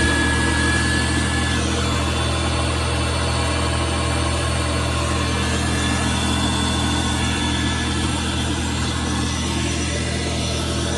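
1960s Oliver tractor engine running at a steady speed, with an even hiss over it.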